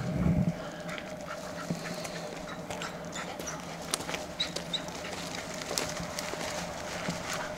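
Bear hounds barking faintly as they work a track, with short rustles and clicks in dry leaves and gravel.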